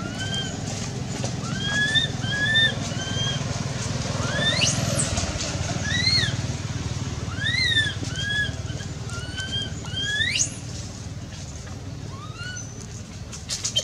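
Macaque coo calls: short, arched, whistle-like coos repeated every half second or so, with two long rising squeals about four and a half and ten seconds in. A steady low rumble runs underneath.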